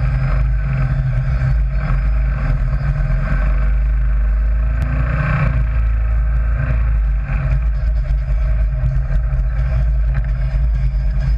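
Sand rail dune buggy's engine running steadily while it drives, with a strong deep rumble.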